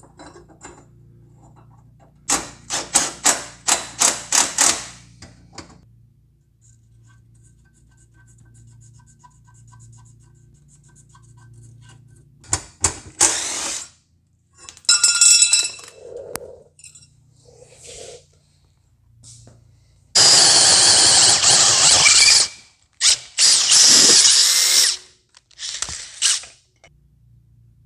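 A cordless drill running in several separate bursts, the longest two lasting about two seconds each past the middle. A quick series of about eight sharp clicks comes a couple of seconds in.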